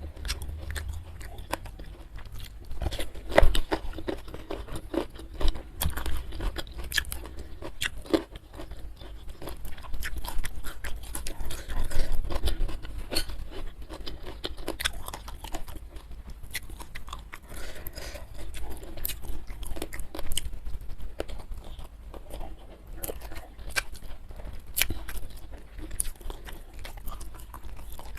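Close-miked eating sounds: steady chewing with many small crunches and wet mouth clicks, louder bites now and then.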